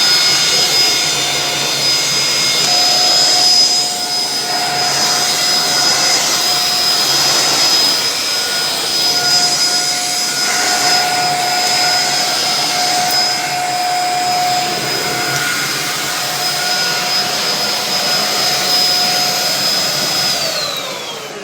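Handheld vacuum cleaner running steadily with a high-pitched motor whine over a rushing air noise. Near the end the whine falls in pitch as the motor winds down.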